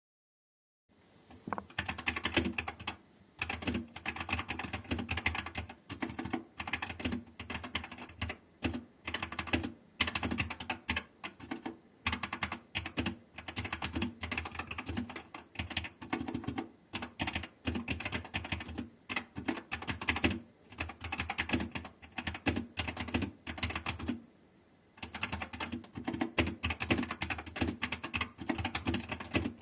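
Typing on a Redragon K552 mechanical keyboard: rapid key clicks in bursts with short pauses between, starting about a second in and stopping briefly a little before the end.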